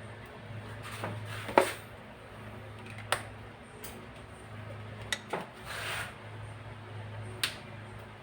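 Sharp clicks and knocks of small metal parts and tools being handled, about five in all, the loudest about one and a half seconds in, with a short scrape near six seconds, over a steady low hum.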